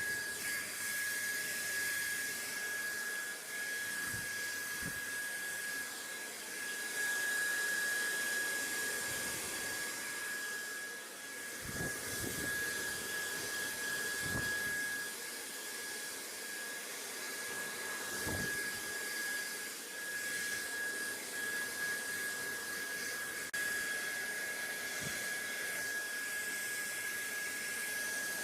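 Steady white-noise hiss with a thin, constant high tone running through it, and a few soft low thuds now and then.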